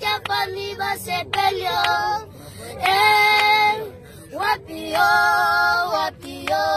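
Two boys singing together unaccompanied, in phrases with a few long held notes and short breaks between them.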